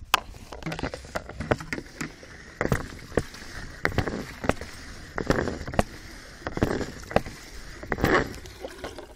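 Camera handling noise: irregular knocks and short rustling bursts as the microphone is jostled and rubbed against clothing.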